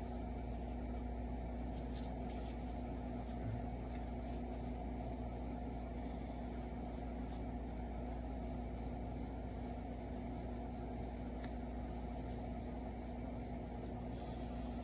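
Steady low room hum with a constant tone, from a running fan or appliance, with a few faint light ticks.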